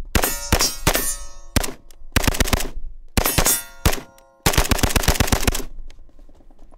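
Saiga 5.45 rifle in a Slide Fire bump-fire stock: a few single semi-auto shots, then three bump-fired bursts, the last one the longest. Struck steel targets ring between and under the shots.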